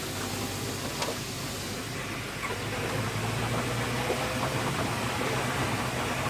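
Ford Zetec four-cylinder engine of a converted VW Vanagon running under way, a steady drone with road noise, heard from inside the cab. A single short click sounds about a second in.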